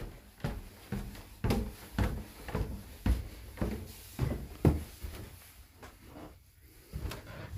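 Footsteps climbing wooden stairs: about ten steady thumps, two a second, that stop about four and a half seconds in, followed by a few softer steps.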